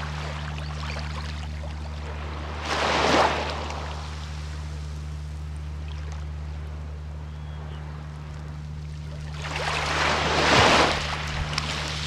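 Small waves breaking on a beach twice, about three seconds in and again near the end, with a gentle wash of water between them and a steady low hum underneath.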